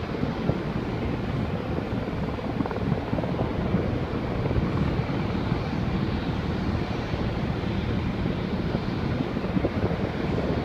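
Steady, low rumbling drone of military rotorcraft in flight: a Sikorsky VH-3D Sea King helicopter coming in to land, with MV-22 Osprey tiltrotors overhead and on the pad.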